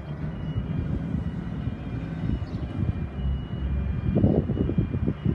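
Level crossing warning bells (WCH electronic m-bells) ringing in a repeating high tone, over a heavy low rumble.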